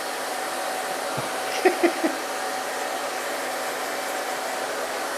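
Hand-held hair dryer running steadily with a faint whine, drying a wet hen. About a second and a half in, the hen gives three short clucks in quick succession.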